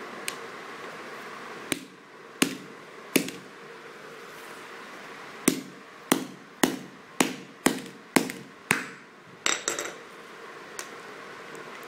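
Hammer blows on a plastic mobile phone lying on a tiled floor: three sharp strikes spaced well apart, then a faster run of seven about half a second apart, followed by a brief clatter of small clicks.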